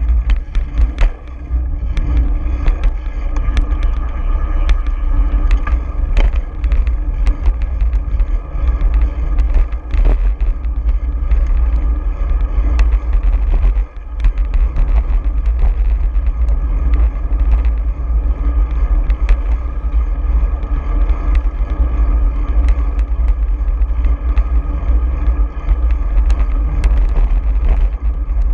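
Wind rumbling on the microphone of a bicycle-mounted action camera during a ride along a city street, with frequent sharp clicks and knocks from the mount and the road surface. The rumble dips briefly about halfway through.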